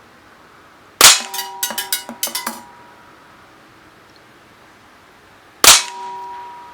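Two loud shots from a CO2-powered Sig Sauer SP2022 BB pistol, about four and a half seconds apart, each followed by metallic ringing. After the first shot comes a quick rattle of small metallic clicks.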